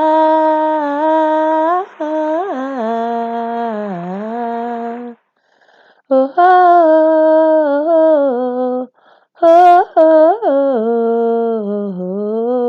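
A single unaccompanied voice singing long wordless held notes that slide and dip in pitch, stopping briefly twice.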